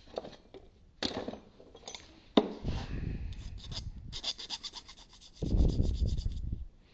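Hand file scraping across metal to knock off a small burr: a few separate strokes, then a quicker run of short strokes in the second half.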